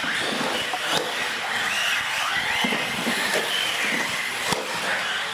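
Several radio-controlled UTVs racing on a concrete floor: motor whines rising and falling with the throttle over a steady hiss of tyres. There are a couple of sharp knocks, about a second in and again near the end.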